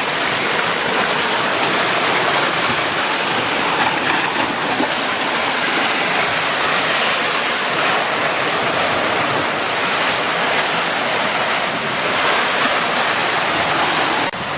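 Black Sea surf breaking against a rocky shore: a loud, steady rush of churning water, with a sudden break just before the end.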